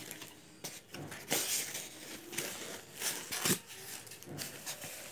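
Small cardboard box being opened by hand: its flaps lifted and the contents handled inside, giving a few short scraping rustles of cardboard and packaging, the strongest about a second and a half and three seconds in.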